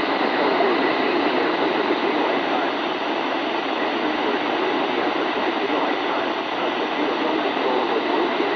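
Heavy static hiss from a weather radio receiver on a weak NOAA Weather Radio signal, steady and even, with a faint steady tone running under it.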